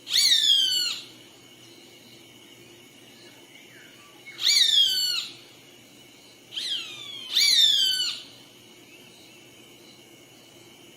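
A bird calling loudly: three calls of about a second each, roughly four seconds apart, every one falling in pitch, with a shorter call just before the third.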